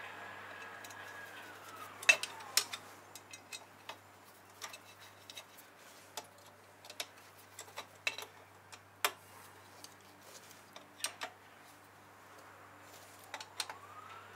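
Scattered, irregular light metal clicks and clinks as a screwdriver works a small retaining screw into a car's rear brake drum.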